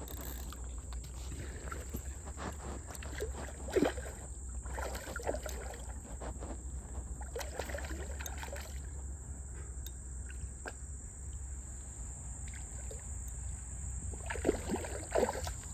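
Scattered knocks and rustles of a fishing landing net being handled right at the microphone, over a steady low rumble.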